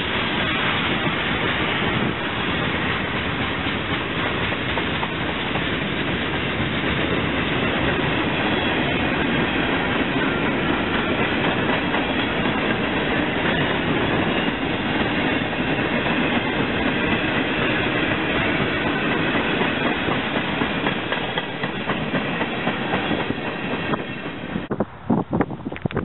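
CSX freight train's cars rolling steadily past, steel wheels running on the rails, made up of tank cars, a boxcar and loaded gondolas. About a second before the end the train sound cuts off and gives way to gusts of wind on the microphone.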